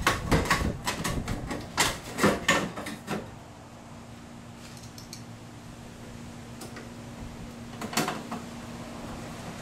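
Sheet-metal cover panel being fitted back onto an ice machine's cabinet: a quick run of clicks, knocks and rattles for about three seconds, then a faint steady hum, with another short cluster of clicks about eight seconds in.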